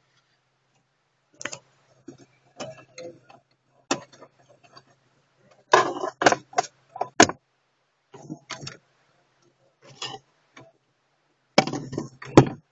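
Sharp plastic clicks and knocks in irregular clusters as the glove box latch and lid on a 2004 Hyundai Accent's dashboard are worked by hand. They are loudest about six to seven seconds in and again near the end, over a faint low hum.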